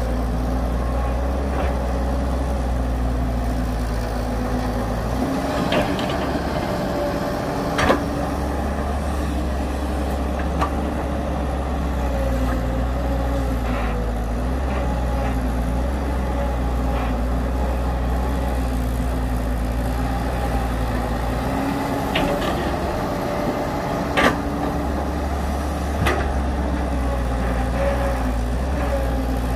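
Heavy diesel earthmoving machinery running steadily, its engine note shifting with changing load. Twice its deep low rumble fades for several seconds before returning. Sharp clanks and knocks come every few seconds, loudest about eight seconds in and again about 24 seconds in.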